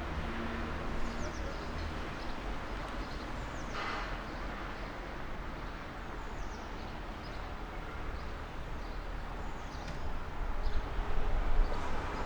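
City street ambience: a steady hum of distant traffic with small birds chirping now and then above it. The traffic swells louder near the end.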